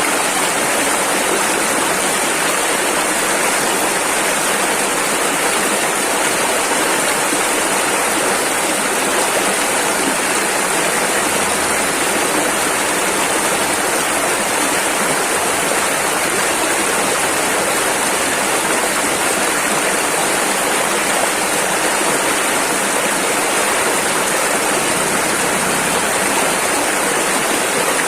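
Rushing river water, a loud, steady rush of white water with no change.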